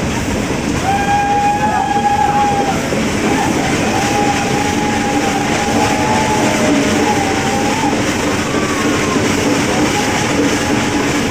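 Nilgiri Mountain Railway train running with a steady rumble, and a high wavering squeal from the wheels that comes and goes several times.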